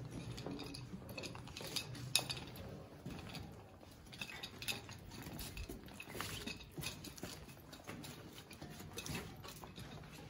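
Footsteps on steel floor grating and metal stairs, with scattered light metallic clinks and knocks.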